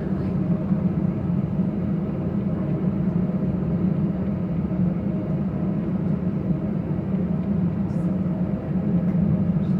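Steady low drone of an Airbus A319's cabin, heard from inside the airliner, with no change in pitch or level.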